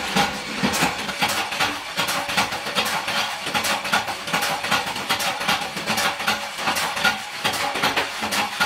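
Workshop machinery running, with a dense irregular clatter of sharp clicks throughout.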